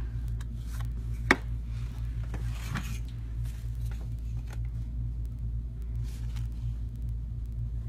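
Small knocks and handling sounds of craft materials being moved about on a table, with one sharp click about a second in and a softer knock a little later, over a steady low hum.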